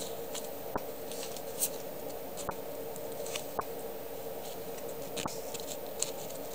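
Sticker sheets handled by hand: short scratchy rustles and a few light clicks as the stickers are picked up, slid and turned over. A steady low hum runs underneath.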